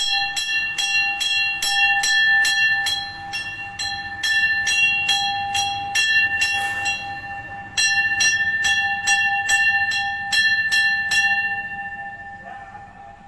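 A temple bell rung in quick repeated strokes, about four a second, each stroke ringing with the same clear tone. The ringing breaks off for about a second and a half around the middle, starts again, then stops a little before the end and the tone dies away.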